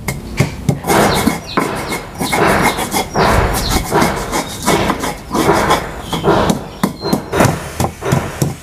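Stone pestle crushing and grinding garlic, ginger and turmeric into a spice paste in a stone mortar (Indonesian cobek and ulekan): repeated gritty scraping strokes, about two a second.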